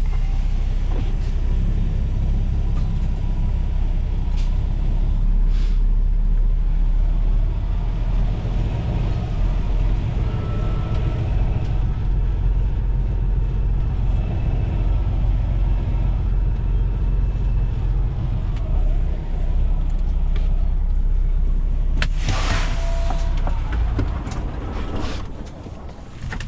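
Heavy diesel engine running steadily with a low rumble. About 22 seconds in, a loud burst of air hiss cuts across it, and near the end the engine sound drops away.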